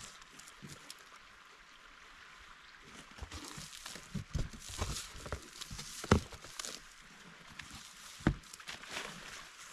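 A large cardboard shipping box being opened and unpacked by hand: cardboard flaps and packing rustling, with a few sharp knocks, the loudest about six seconds in and another near eight. Feet shift on gravel at times.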